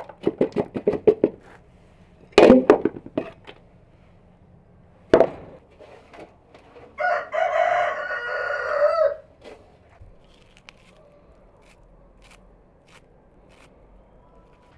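Chickens clucking in quick runs of short calls, then a rooster crowing once for about two seconds, starting about seven seconds in.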